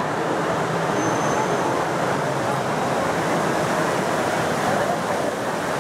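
Steady rush of water from a large ornamental fountain, mixed with the murmur of a crowd.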